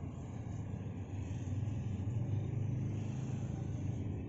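Low steady background rumble, louder from about two to three and a half seconds in.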